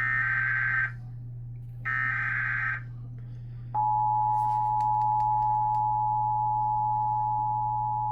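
Emergency Alert System header: two buzzy SAME data bursts, each about a second long and a second apart, are the last of the three-burst header. About four seconds in, the steady two-tone EAS attention signal begins and holds, over a low steady hum.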